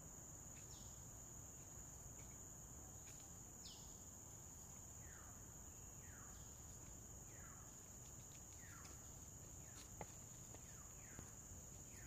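Faint natural ambience: a steady high-pitched insect drone, with a series of short falling calls repeating about once a second through the second half and a few light clicks near the end.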